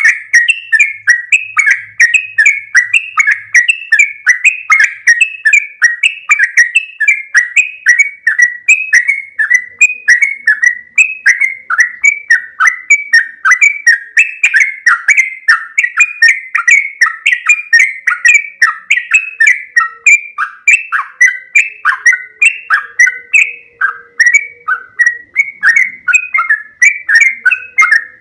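Sooty-headed bulbul (trucuk) singing loudly in a long unbroken run of short chirping notes, about three a second.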